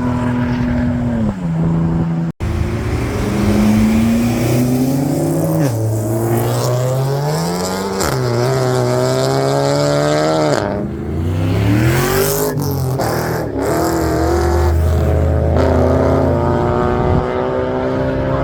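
Car engines accelerating hard, the pitch climbing and then dropping several times as gears change, with a brief break about two seconds in.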